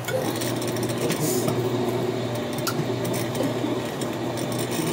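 Electric can opener motor running steadily on a can, a low hum with a few light clicks.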